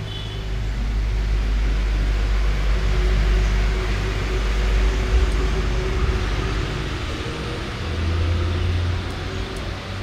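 Low, steady rumble of a motor vehicle engine running nearby, growing louder about a second in and swelling again near the end.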